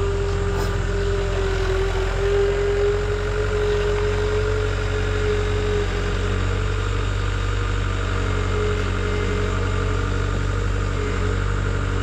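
A vehicle engine running steadily, a low hum with a steady whine above it that fades about halfway through.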